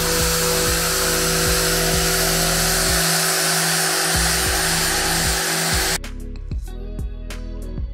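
Handheld electric detail sander running steadily while sanding the wooden planking of a model ship hull, cutting off abruptly about three-quarters of the way through. Background music with plucked guitar-like notes plays throughout.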